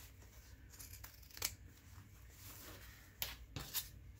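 Quiet handling of craft paper pieces, with soft rustling and a few short sharp clicks.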